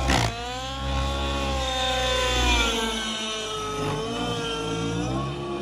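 Nitro RC helicopter's two-stroke glow engine and rotors in flight, the whine rising and falling in pitch as it manoeuvres. There is a brief burst of noise right at the start.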